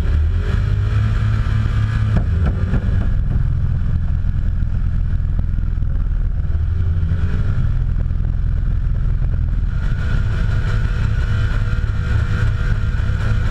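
Engine held at high revs through a burnout, with the rear tyres spinning and squealing on the pad, heard from inside the cab. It runs loud and steady, with no let-up.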